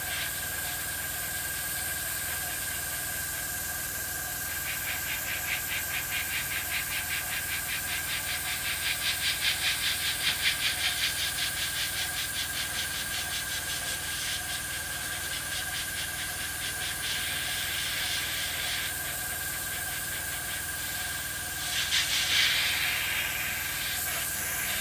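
Airbrush spraying paint at low air pressure: a steady hiss of air, fluttering rapidly in stretches as the trigger is worked, over a thin steady high tone.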